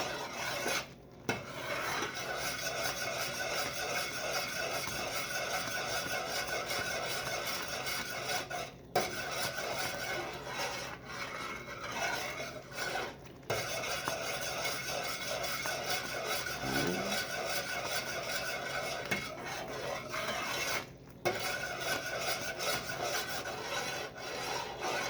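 A spoon stirs and scrapes around the bottom of a pot of boiling fudge syrup (butter, sugar and evaporated milk), making a steady rasping with a few brief breaks. The syrup is kept at a rolling boil under constant stirring.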